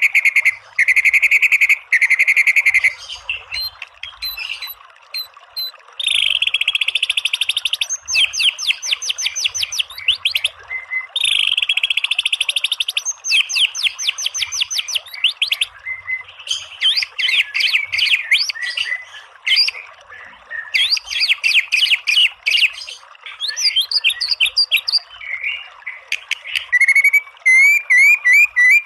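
White-rumped shama singing in quick phrases: buzzy trills, fast runs of repeated notes ('tembakan') and short rising whistles, over a steady background hiss.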